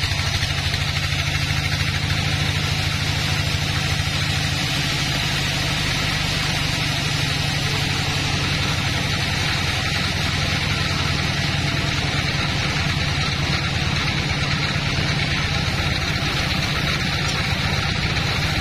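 Band sawmill running steadily: a low motor hum under the steady hiss of the band-saw blade cutting through a log.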